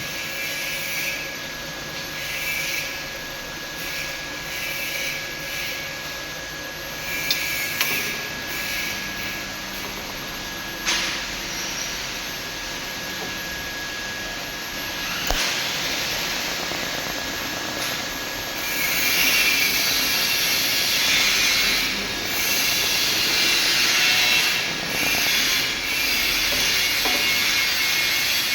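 TIG welding arc hissing steadily with a thin high whine, broken by a few sharp clicks, and growing louder and harsher for the last third.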